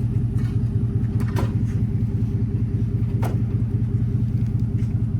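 An engine running steadily at a constant speed, a low pulsing rumble, with a few faint ticks over it.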